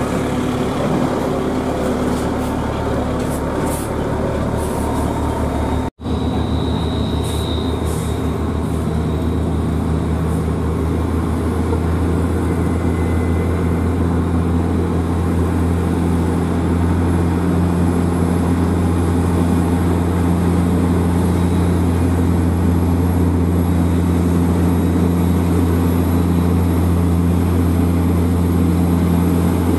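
Heavy diesel truck engines pulling slowly uphill under load: a deep steady drone. The sound cuts out for an instant about six seconds in, then the drone settles and grows slightly louder.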